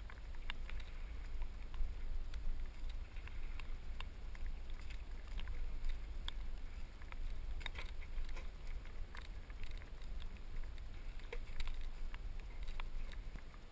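Wind and handling noise on a body-worn camera's microphone: a steady low rumble with scattered small clicks and knocks.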